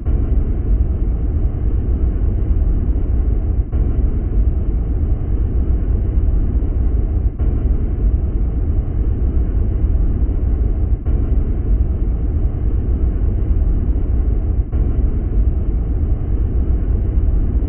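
Deep, steady rumbling noise, a short loop that repeats about every four seconds, presented as the sound of Saturn's moon Prometheus.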